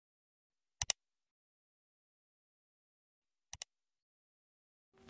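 Two mouse-click sound effects, each a quick double click, about a second in and again, fainter, about three and a half seconds in, with dead silence between.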